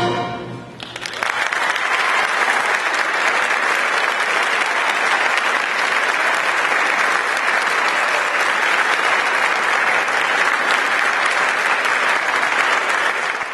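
A symphonic band's final sustained chord dies away, and about a second in the audience breaks into steady applause that continues.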